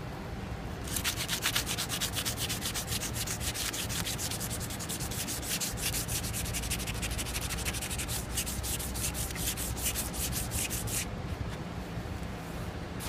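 A cloth rubbed briskly back and forth along the chrome steel tube of a kart stand to clean it, in quick scratchy strokes several a second. The rubbing stops about eleven seconds in.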